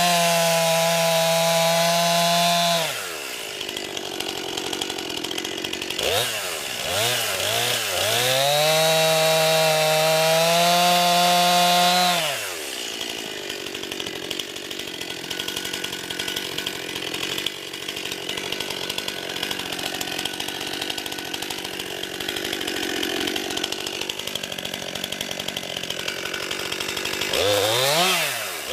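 Stihl MS 261 50 cc two-stroke chainsaw held at full throttle for about three seconds, dropping back to idle, blipped a few times, then held wide open again for about four seconds before idling for a long stretch and revving briefly near the end.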